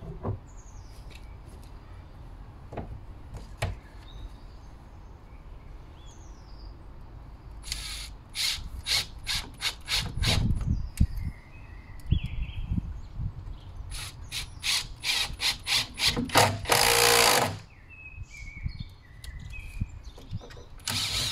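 Cordless impact driver driving screws into a door hinge and frame in short trigger bursts. Two runs of stop-start bursts come about 8 and 14 seconds in, followed by one longer continuous run near 17 seconds and a last burst at the end.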